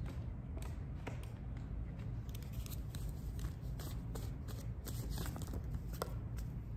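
Cards being shuffled and handled: faint, scattered snaps and rustles over a low, steady hum.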